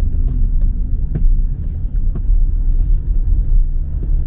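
Steady low rumble of a car driving, heard from inside the cabin: road and engine noise, with a few faint light ticks.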